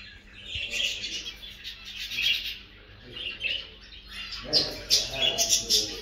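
A flock of small caged finches chirping, many quick high calls overlapping. The chirping grows busier and louder about four and a half seconds in, when a lower, fuller sound joins it.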